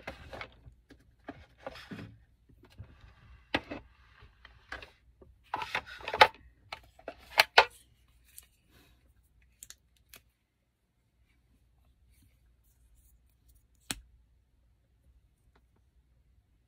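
Small clicks, taps and scrapes of plastic makeup containers being handled and opened, dense at first, then thinning out to a few light ticks and one sharp click near the end.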